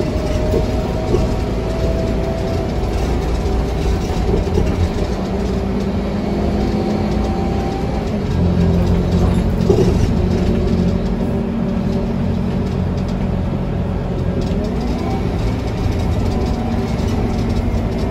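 Scania K320UA bus heard from inside the passenger saloon: the engine and drivetrain run with a steady low drone and a thin whine. The drone grows heavier about eight seconds in and stays stronger for a couple of seconds.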